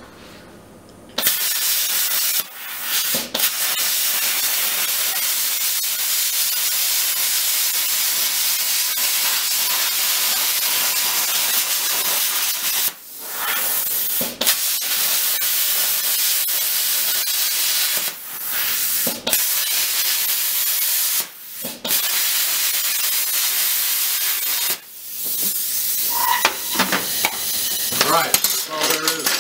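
Hypertherm plasma cutter cutting flat sheet steel: the steady, loud hiss of the arc and air jet starts about a second in and breaks off briefly several times before starting again.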